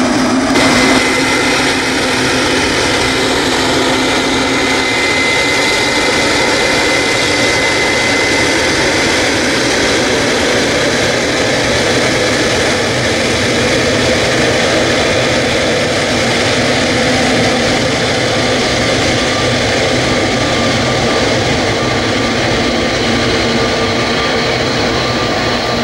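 Boeing 777-300ER's GE90-115B turbofan jet engines running steadily at taxi power as the airliner taxis, a continuous jet rumble with a high whine over it.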